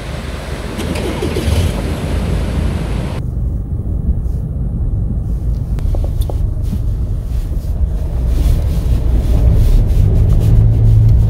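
4x4 vehicles driving through a flooded forest track, engines running with water splashing and swishing around the wheels. About three seconds in the sound turns duller, heard from inside a vehicle, with a low engine drone that is loudest near the end.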